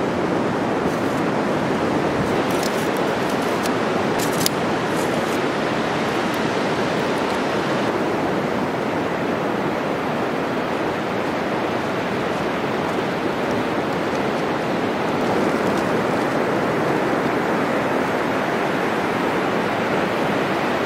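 Sea surf washing onto a beach, a steady rushing noise, with several brief clicks in the first few seconds.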